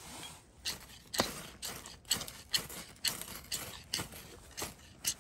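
Ferrocerium rod scraped again and again with a steel striker, throwing sparks into a pile of wood shavings: short, sharp scrapes about two a second.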